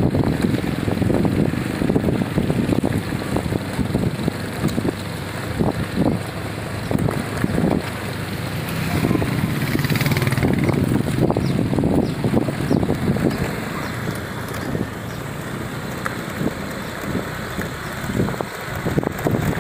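Wind buffeting the microphone on a moving motorcycle, with small motorcycle engines running underneath.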